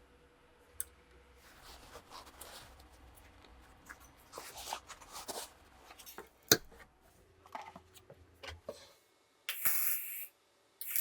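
Small metal parts and tools being handled on a workbench: scattered clicks and short scrapes, with a sharp knock about six and a half seconds in, then a hissing burst near the end.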